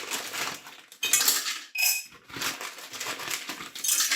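Handfuls of dry pasta rattling and clattering as they are scooped from the packet and dropped into a saucepan, in several bursts with some brief ringing.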